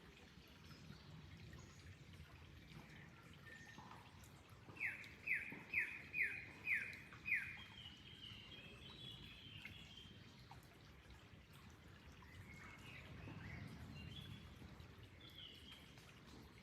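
A songbird sings a run of six loud falling notes, about two a second. Softer high chirps from birds follow, over a faint background of trickling water.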